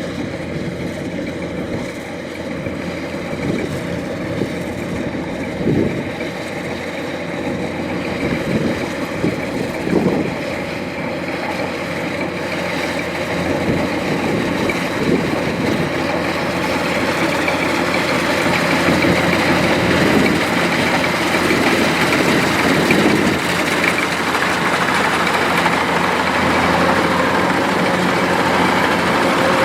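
Kubota DC-105X rice combine harvester running steadily, its diesel engine growing gradually louder, with a few short knocks in the first ten seconds.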